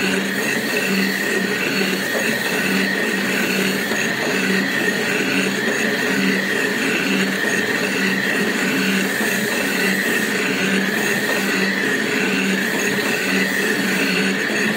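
Jig boring machine boring out the seal seat of a steam pressure valve: the rotating boring bar's tool cutting steel, a steady machining noise with a wavering high whine and a low hum that pulses on and off.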